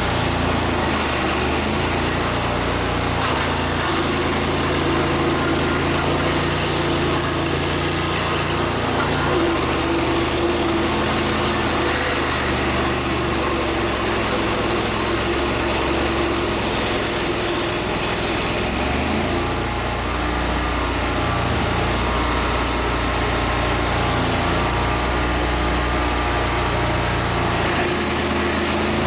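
An engine running steadily, its note shifting to a different speed about twenty seconds in.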